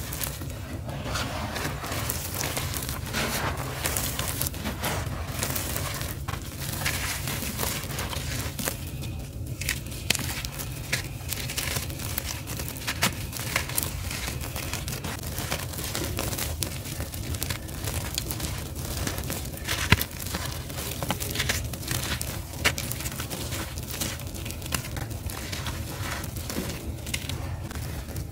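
Gritty charcoal powder and granules being crumbled between fingers and sprinkled back onto a heap: a continuous dense crunching and fine crackling, with one sharper, louder crack about two-thirds of the way through. A steady low hum runs underneath.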